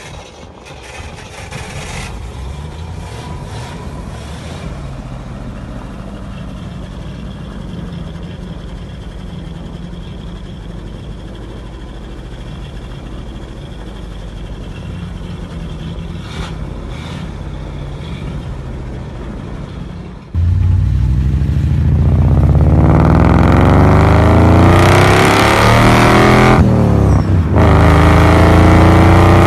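GAZ Volga's ZMZ V8 on custom exhaust headers running at low revs with a steady low rumble, then suddenly opened up about two-thirds of the way in: it gets much louder and its pitch climbs as the car accelerates hard. Near the end it dips briefly, as at a gear change, and climbs again.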